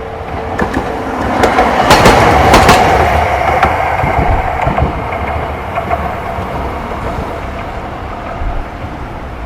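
A streetcar passing by, its wheels clacking over the rail joints, loudest about two seconds in, then fading as it moves away.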